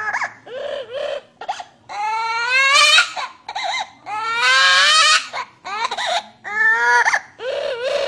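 Parrot mimicking a baby's crying: a run of wailing cries, several rising in pitch, with a harsher, noisier cry about halfway through.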